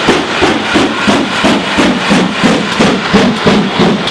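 GWR Manor class 4-6-0 steam locomotive 7822 Foxcote Manor passing at close range under steam: a steady rhythm of exhaust beats from the chimney, about three a second.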